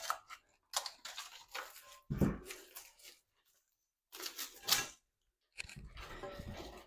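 Irregular clatter and rustling of tools and objects being handled and moved about, with a dull thump about two seconds in.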